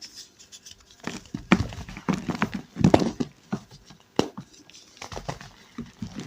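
Reformed gym chalk blocks being crushed: a run of uneven dry crunches and crackles, the loudest near the middle.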